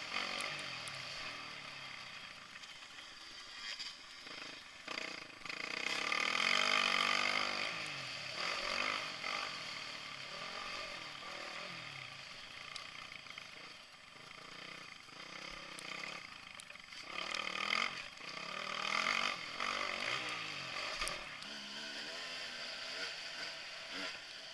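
Dirt bike engine revving up and down as the bike is ridden. It gets louder on the throttle about six seconds in and again around eighteen seconds.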